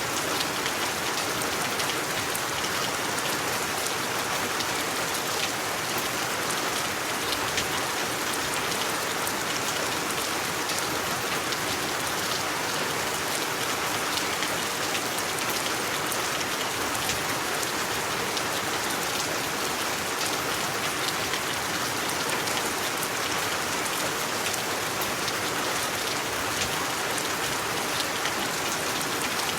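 Steady rain falling, a dense hiss of drops with fine crackling patter of individual drops hitting a surface.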